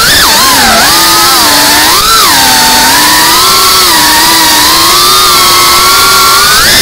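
FPV quadcopter's brushless motors and propellers whining loudly in flight, heard from the camera on board. The pitch rises and falls with the throttle, swelling about two seconds in and climbing sharply near the end.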